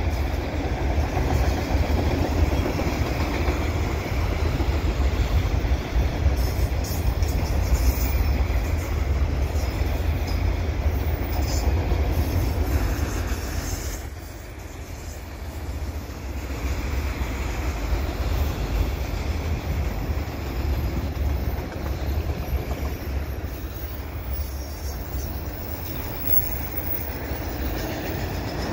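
CN freight train's autorack cars rolling past: a steady rumble of steel wheels on rail, easing off briefly about halfway through.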